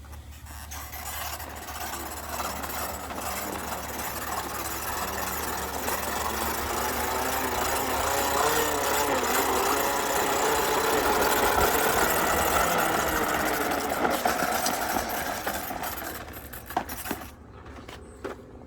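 Battery-powered toy bubble lawn mower running with a steady motor whir that grows louder toward the middle and fades near the end.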